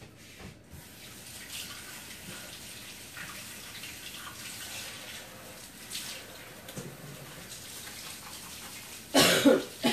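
Kitchen tap running while a hand is rinsed under it: a steady rush of water. A short, louder sound comes near the end.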